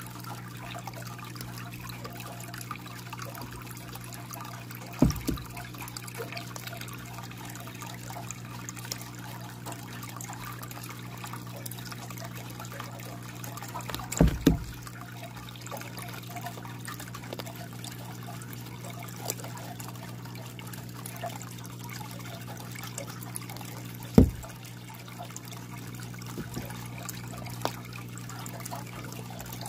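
Water trickling steadily in a reptile tank over a low steady hum. Three sharp thumps break in: one about five seconds in, a double one near the middle, and one later on.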